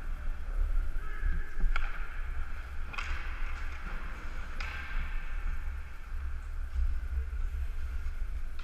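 Ice hockey skates gliding and scraping on rink ice, with a steady low wind rumble on a helmet-mounted microphone. Three sharp clacks of hockey stick on puck ring out, about two, three and four and a half seconds in.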